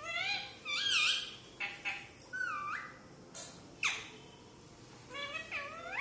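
Rose-ringed (Indian ringneck) parakeet vocalizing in a run of short, whistle-like calls that bend up and down in pitch, with a sharper squawk about four seconds in.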